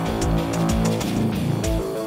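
Background music with a steady drum beat and sustained guitar notes.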